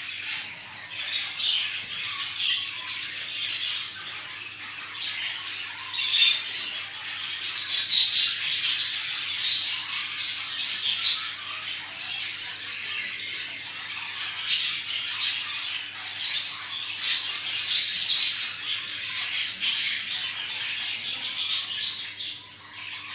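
Many budgerigars in breeding cages chattering and squawking together: a dense, unbroken twitter with frequent sharp chirps standing out, the lively colony chatter that breeders play to bring budgies into breeding condition. A faint steady low hum runs underneath.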